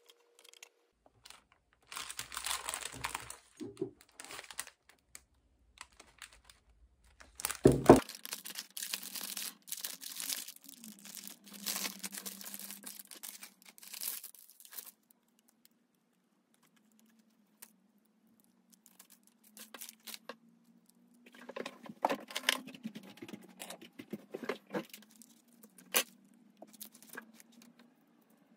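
Bouquet wrapping paper being pulled off and crumpled by hand: irregular bursts of crinkling and tearing, with one sharp knock about eight seconds in. After a lull, lighter rustling and clicks as the flowers are handled.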